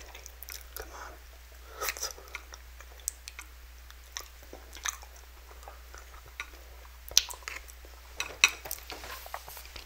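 Close-miked chewing and mouth sounds of a person eating instant noodles: a string of scattered short clicks and smacks, the loudest about seven and about eight and a half seconds in.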